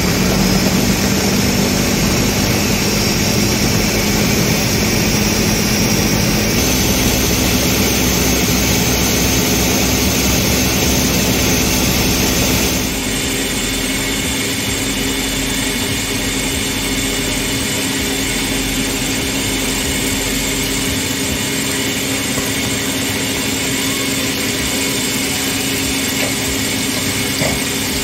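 Countertop blender motor running at high speed, puréeing a chunky tomato, onion and cashew sauce, with a steady whirring hum. Its pitch steps up about six seconds in. About thirteen seconds in the sound turns slightly quieter and steadier.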